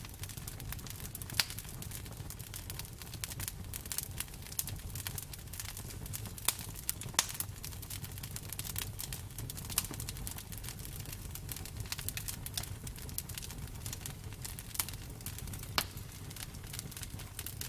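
Wood bonfire crackling, with frequent small crackles and several sharper pops over a low, steady rumble.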